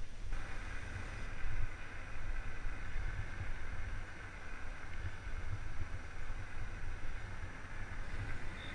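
Bicycle rolling fast on tarmac: uneven wind buffeting on the bike-mounted camera's microphone over a steady tyre hiss.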